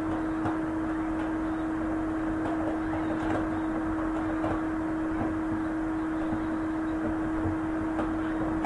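Steady background hum: one constant low tone over a faint even noise, with nothing else happening.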